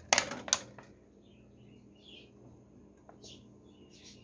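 Two sharp metallic clanks about half a second apart right at the start, a metal slotted spoon knocking against a pressure-cooker pot on the gas stove. Faint bird chirps follow in the background.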